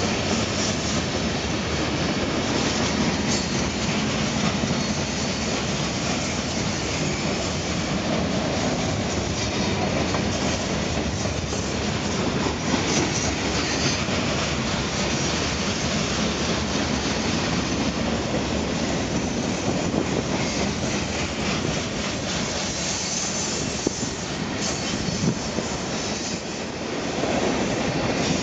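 Freight train cars rolling past close by: a steady noise of steel wheels running on the rails, with clicking as the wheels pass over the rail joints.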